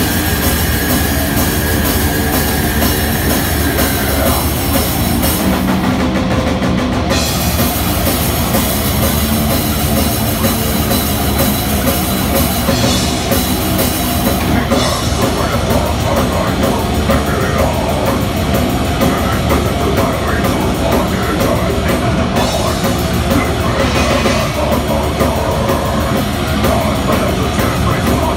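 Heavy metal band playing live at full volume: distorted electric guitars, bass guitar and a drum kit in a dense, steady wall of sound.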